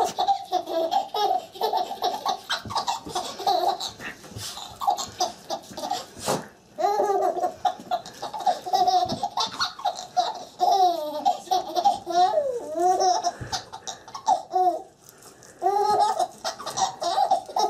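A baby laughing hysterically in repeated bouts of high-pitched laughter, with short breaks about six seconds in and again near fifteen seconds.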